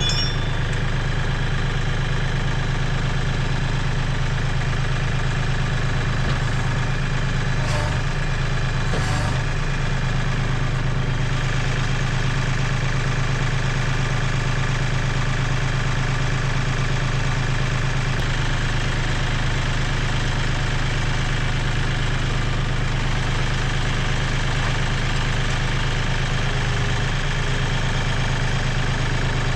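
Compact tractor engine idling steadily, with a couple of short knocks about 8 and 9 seconds in.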